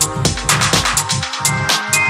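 Electronic dance music: a steady kick drum about twice a second with hi-hats and synths. About halfway through, the deep bass drops away.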